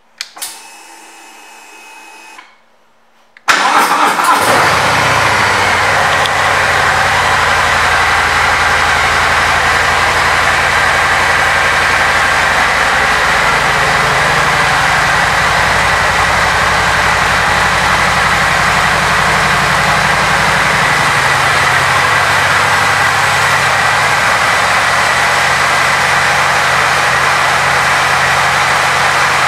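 Harley-Davidson Milwaukee-Eight 114 V-twin engine starting up about three and a half seconds in, after a faint whir, then idling steadily, its idle note shifting slightly midway.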